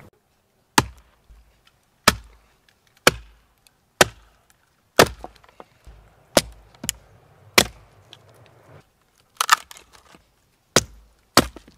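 Hatchet chopping into a piece of wood held upright against a tree trunk, splitting it into kindling. About a dozen sharp strikes, roughly one a second and unevenly spaced, with a few quick strikes close together about two-thirds of the way through.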